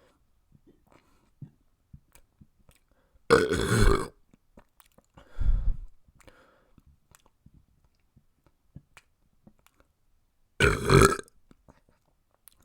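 A person burping twice, each burp under a second long and about seven seconds apart, with a softer, lower sound between them and faint mouth clicks.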